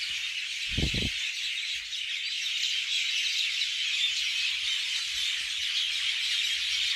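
Dense, continuous chorus of many birds chirping and calling, with a brief low sound about a second in.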